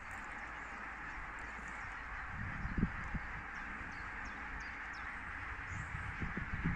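Outdoor lakeside ambience: a steady hiss, with waterbirds such as ducks calling and faint short high chirps. Low thumps come about two and a half to three seconds in and again near the end.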